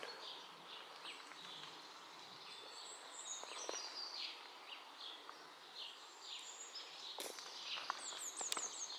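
Small songbirds chirping and calling in woodland, many short falling notes with a quick high run of notes near the end. A few faint single taps sound among them.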